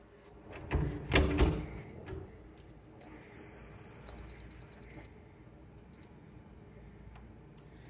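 Two loud thumps about a second in, then an electronic door lock beeping. It holds a high tone for about a second, breaks into a quick run of short beeps, and gives one more short beep later: the lock refusing entry.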